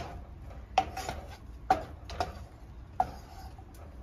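Wooden spoon knocking and scraping against a nonstick frying pan while stirring diced onions in butter: about half a dozen uneven knocks, each with a short ring from the pan.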